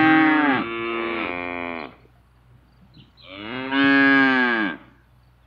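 Cow mooing: two long moos, the first already under way and ending about two seconds in, the second starting about three seconds in and lasting about a second and a half, each dropping in pitch at its end.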